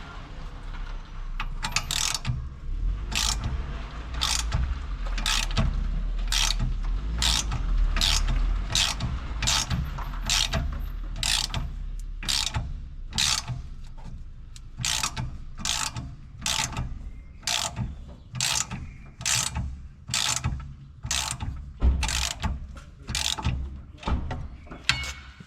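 Hand ratchet wrench being worked back and forth on a bolt, each back-stroke giving a short rasp of pawl clicks, a little more than one stroke a second.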